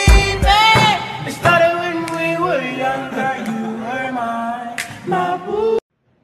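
Background song with a singing voice, cutting off suddenly near the end.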